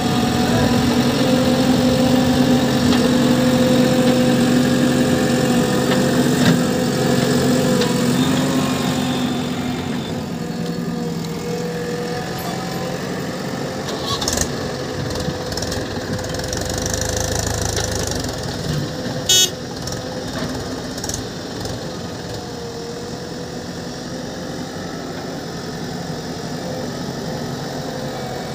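Diesel engines of a JCB 3DX backhoe loader and a Mahindra Yuvo tractor running steadily while the loader works. The engine note shifts about ten seconds in, and there is one brief sharp sound about two-thirds of the way through.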